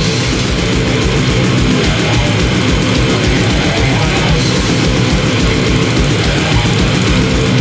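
Loud heavy rock music with distorted electric guitar over a fast, pounding drum beat.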